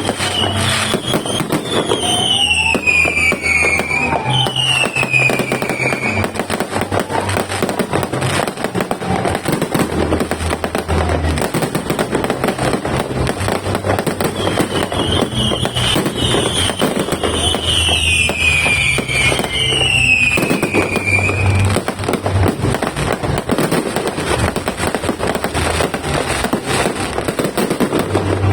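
A multi-shot fireworks barrage firing continuously, a dense run of rapid bangs and crackles with no break. Music with a stepping bass line plays over it, a falling melodic phrase coming twice.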